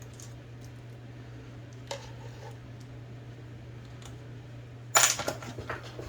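Small metal clicks from tools and parts being handled on an IBM Selectric II typewriter mechanism, with a sharp clattering burst of clicks about five seconds in, over a steady low hum.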